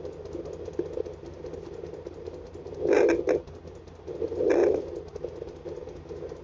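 Home fetal Doppler speaker playing a 22-week fetus's heartbeat as a fast, even, pulsing whoosh over crackle. Two loud swooshing thumps about three and four and a half seconds in are the baby moving, which the parent takes as the baby being active and pushing.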